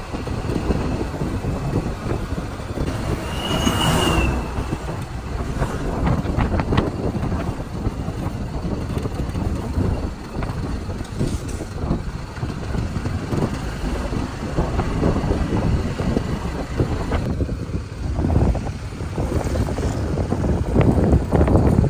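Vehicle travelling on a road: steady engine and road rumble, with a brief high tone about three and a half seconds in.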